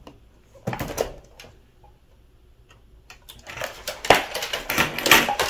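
Rummaging and handling objects, with a book and plastic CD cases among them: a few light knocks and rustles about a second in, then a dense run of clattering and rustling over the last two seconds.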